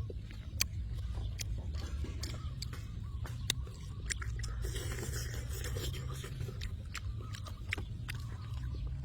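Eating: chewing and biting into boiled chicken, with many irregular sharp clicks and smacks over a steady low rumble.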